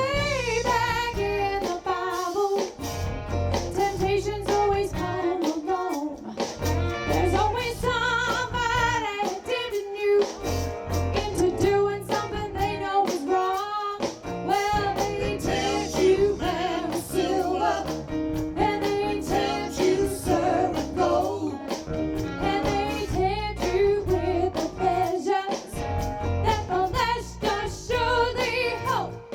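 Live soul band playing, with a woman singing lead over electric guitar, bass and drums.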